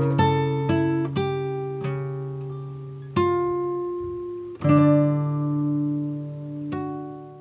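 Slow background music of plucked string notes, each struck sharply and left to ring and fade before the next.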